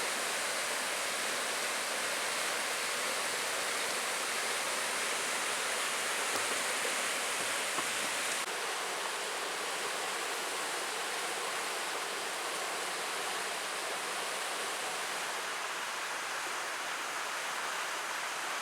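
Rushing water of the gorge's stream, a steady even hiss that dips slightly in level about eight seconds in.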